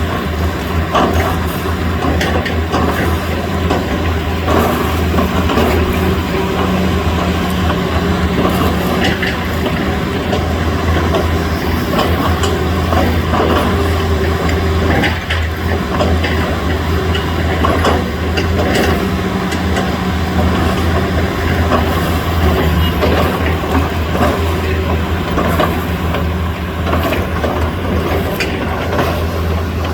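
Hitachi hydraulic excavator's diesel engine running steadily under load, with frequent knocks and cracks mixed in.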